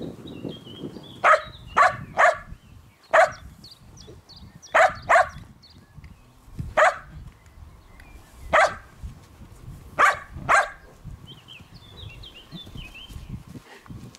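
A dog barking off and on, about ten sharp barks, several of them in quick pairs.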